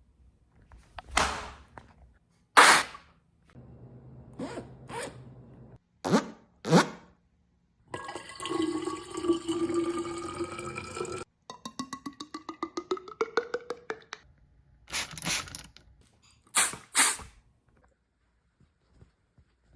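A person imitating everyday sounds with the mouth: a string of separate vocal sound effects. They include hissing whooshes, a low hum with clicks, sharp pops, a rising whine over a rush of hiss like water filling, and a fast run of clicks with a rising tone.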